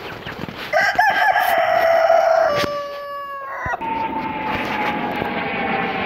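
A rooster crowing one long drawn-out crow of about three seconds, starting about a second in and stepping down in pitch near its end. It breaks off sharply and gives way to a steady drone that falls slowly in pitch.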